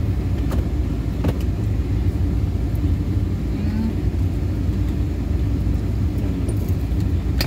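Steady low rumble of a car running, heard from inside its cabin while parked, with a couple of faint clicks about a second in.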